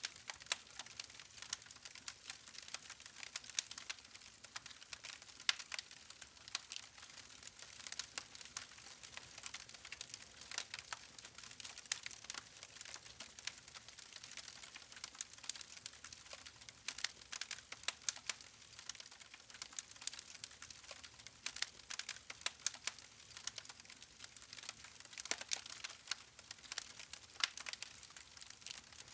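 Wood fire crackling and popping: dense, irregular sharp snaps of burning logs over a soft hiss of flame.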